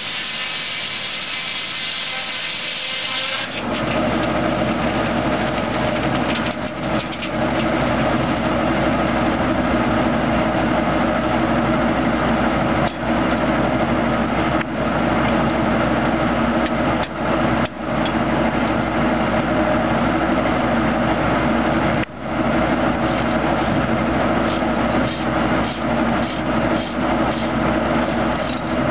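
Circular saw blade of a tractor PTO-driven Foley Belsaw sawmill cutting through a log for the first few seconds. Then the sound changes to the tractor engine and the spinning blade running steadily and louder, with a few brief dips.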